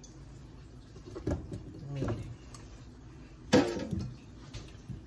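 Kitchen handling noises as dishes and utensils are moved on the counter: a knock about a second in, then a sharp clatter about three and a half seconds in, the loudest sound.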